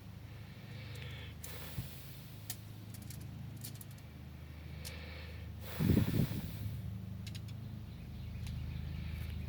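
Bowtech Revolt compound bow shot: a single short, loud thump about six seconds in as an arrow is released, over a steady low rumble with a few faint clicks.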